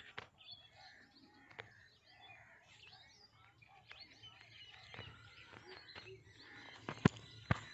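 Small birds chirping and calling in trees over a low outdoor background, with two sharp clicks near the end.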